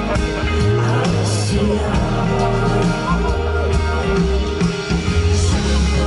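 Live performance of a pop song played loud through a PA: a band with acoustic guitar and bass, with a singing voice over it.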